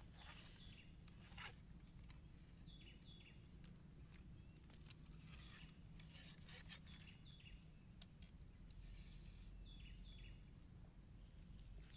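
Steady, high-pitched chorus of insects, crickets, droning without a break, with a few faint clicks and several short falling chirps now and then.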